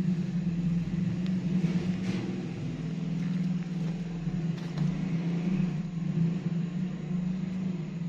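Steady low mechanical hum, like a motor or engine running, with a few faint ticks over it.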